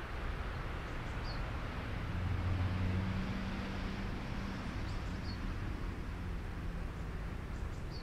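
Outdoor pond ambience: a steady background hiss, a low hum that swells for a couple of seconds early in the middle, and a few faint, high bird chirps spaced a few seconds apart.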